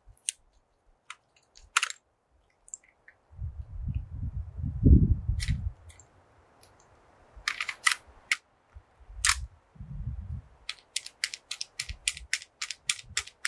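Metallic clicks and clacks of a mud-fouled rifle's action being worked by hand, where the bolt had been failing to go fully into battery. Scattered single clicks with dull handling rumbles, then a quick run of about four clicks a second near the end.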